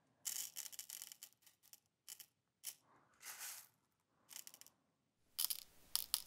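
Small pinches of tungsten shot pellets (TSS number 9s) dropping and rattling into a small metal scale tray in a string of short bursts, topping up a load being weighed.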